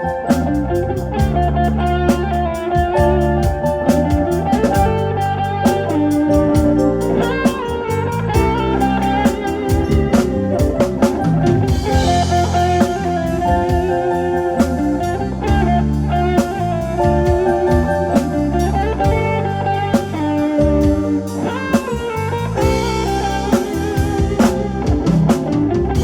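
Live band playing an instrumental piece, with guitar or keyboard melody over a steady drum-kit beat and bass, heard through a PA loudspeaker system; cymbals come in for stretches.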